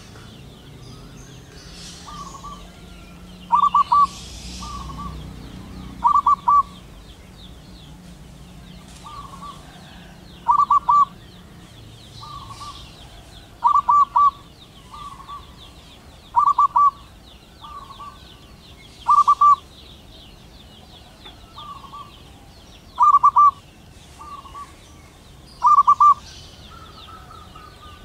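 Zebra dove (perkutut) singing: a quick run of clipped, staccato coos repeated about every three seconds, with fainter coos between the runs. A faint, steady high buzz runs underneath.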